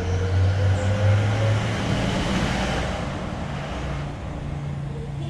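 A motor vehicle on a road: a low engine hum with traffic noise that swells to a peak midway and then eases off, like a vehicle passing.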